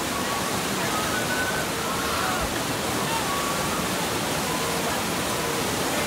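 Whitewater rapids of a river raft ride rushing and churning in a steady, unbroken roar of water.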